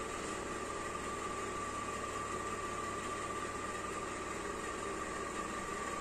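Steady background hiss with a thin, steady whine running through it: room tone with no distinct event.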